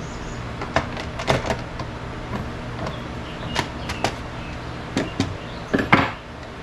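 Irregular clicks and knocks of the air filter cover being opened on a Stihl MS271 chainsaw and the filter lifted out, with the loudest knock near the end.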